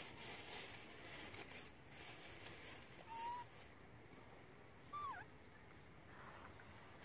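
Two brief, faint animal calls, one about three seconds in and a shorter one that bends down in pitch about five seconds in, over quiet background hiss.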